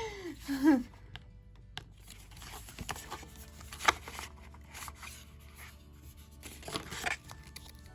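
Packaging and paper handled: short crinkling and tearing rustles, the loudest about four seconds in and again near the end, over faint background music.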